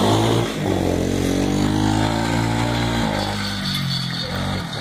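Small quad ATV engine running at high revs as it rides off a jump ramp, holding a fairly steady pitch, then dying away about three seconds in.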